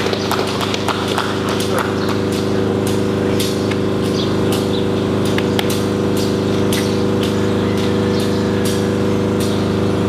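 A steady hum made of several held tones, with irregular sharp clicks scattered over it, a few every second.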